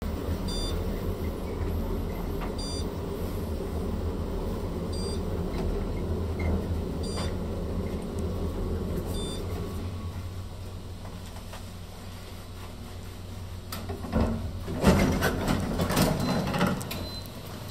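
Elevator car running with a steady low hum, and a short high beep about every two seconds for the first ten seconds. Louder knocks and rumbling come near the end.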